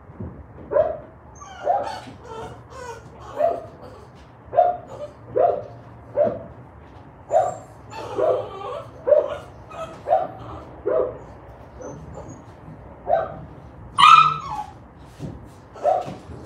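A dog barking over and over, about once a second, with a short pause around twelve seconds in and one louder, higher bark about fourteen seconds in.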